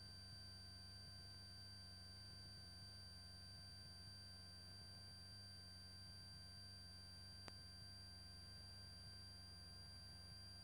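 Near silence: a faint steady electrical hum with a thin high whine on a cockpit audio feed, and one brief click about seven and a half seconds in.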